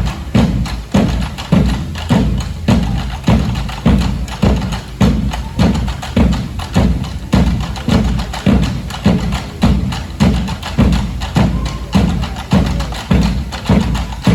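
Percussion band drumming: a steady, heavy low drum beat about three strokes every two seconds, with many lighter, sharper drum and wood-block strikes over it.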